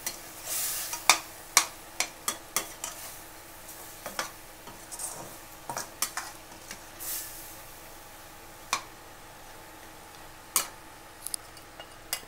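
Chicken and tomato purée sizzling in a stainless steel pan while a perforated metal ladle stirs it, clinking against the pan in a quick run of knocks over the first few seconds, then a few scattered knocks later. The tomato has cooked down well.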